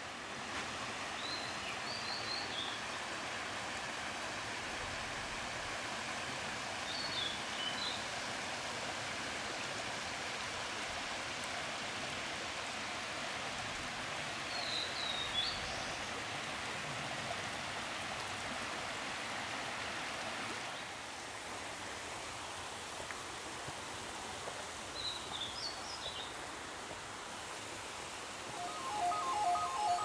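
A small mountain stream running over rocks, a steady rush of water, while a songbird gives four short high chirping phrases spread through it. Music comes in near the end.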